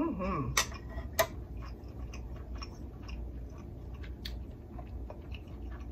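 Close-miked chewing and lip-smacking of a spicy seafood boil. A short hummed "mm" of enjoyment comes at the start, then two sharp loud clicks in the first second or so, and many small wet clicks and smacks follow.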